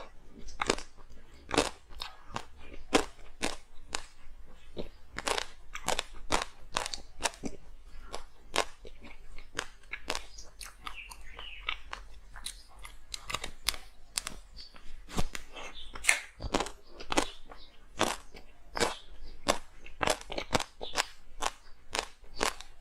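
Hard frozen ice being bitten and chewed close to the microphone: a steady run of sharp, crackling crunches, about two a second.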